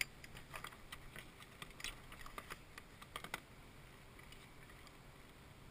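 Irregular light clicks and taps from fishing gear and pliers being handled among the clutter of a plastic kayak, for about three and a half seconds, then only faint hiss.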